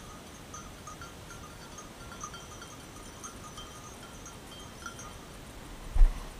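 Faint, irregular tinkling of a hunting dog's bell moving through the brush, short rings over a soft outdoor hiss. A sudden low thump near the end.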